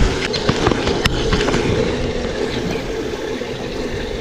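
Spinning reel being cranked as a lure is retrieved, a steady rough whir with a few light clicks in the first second and a half.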